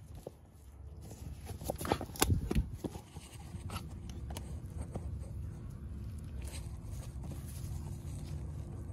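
A cluster of light clicks and knocks about two seconds in, over a low steady rumble, with handling and rustling sounds around them.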